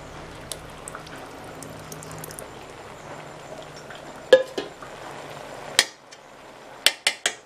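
Steel ladle clinking against a metal cooking pot while curd is mixed into vegetables: small scrapes and clicks at first, one sharp ringing clink about four seconds in, then a quick run of four or five taps near the end. A low steady hum runs underneath and stops near the end.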